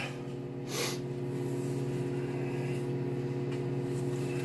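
Microwave oven running with a steady hum, and a short hiss about a second in.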